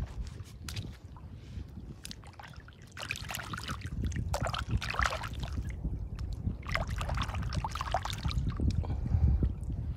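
Shallow water splashing and sloshing as a hand reaches in and grabs a crab off the bottom, in two spells of a couple of seconds each, over a low steady rumble.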